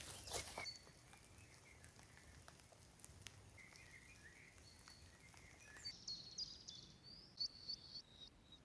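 Faint forest birdsong: a warbling song, then a second bird's rapid run of high chirps over a soft background hiss. A few rustling clicks come at the very start.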